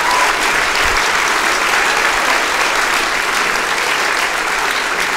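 Theatre audience giving very generous applause: dense, steady clapping from many hands.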